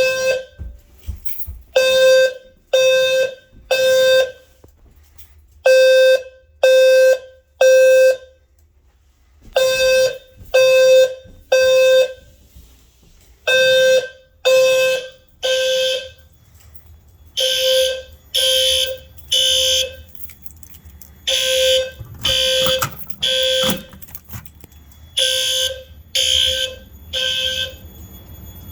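Fire alarm horns (System Sensor horn/strobes) sounding the temporal-three evacuation pattern: three half-second blasts, a pause, then repeating. This is the code for a general fire alarm. From about halfway through, the blasts sound brighter and overlap slightly, as more than one horn is heard.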